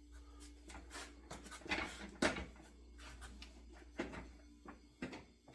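Shinto saw rasp scraping across a wooden axe handle in a few short, irregular strokes.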